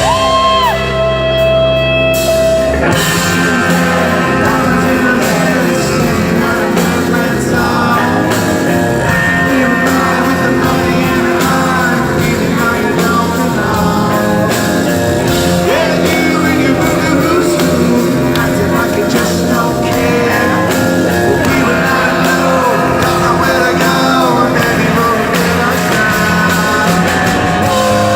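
Rock band playing live, recorded from the audience in a large hall. Sustained chords open, then drums and the full band come in about three seconds in, with a sung vocal over guitars.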